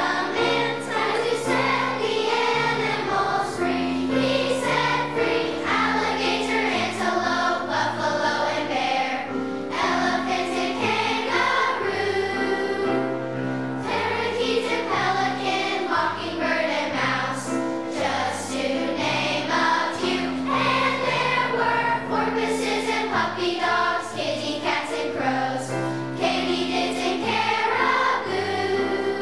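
Children's choir singing a song in unison with piano accompaniment.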